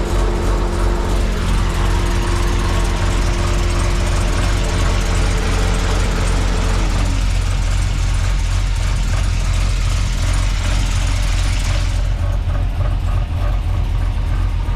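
LS1 V8 of a Holden VX SS Commodore idling steadily, heard from underneath the car, with the freshly rebuilt 4L60E automatic transmission turning. A steady whine glides down and drops away about halfway through.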